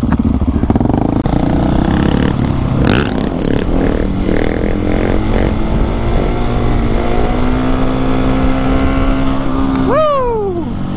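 Husqvarna 701's single-cylinder engine held on the throttle in second gear through a long wheelie, its note running fairly steady, then the revs fall sharply near the end.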